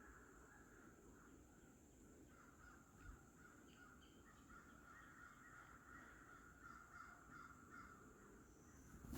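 Faint woodland dawn ambience: distant birds calling over and over, with a steady high-pitched whine underneath.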